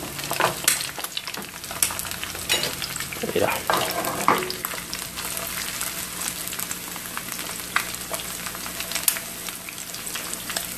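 Two eggs frying in a nonstick pan: a steady sizzle with frequent small crackling pops of spattering fat.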